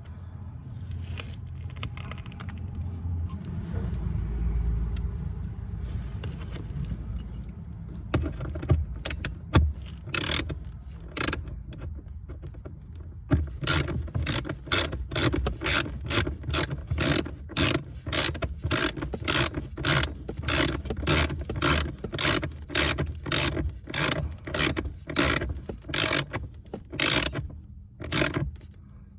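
A low rumble and handling noise, then sharp mechanical clicks that settle from about halfway in into an even rhythm of about one and a half to two clicks a second, stopping just before the end.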